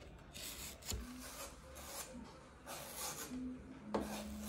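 Kitchen knife slicing thin rounds off a raw banana flower, a series of soft rasping cuts about one a second.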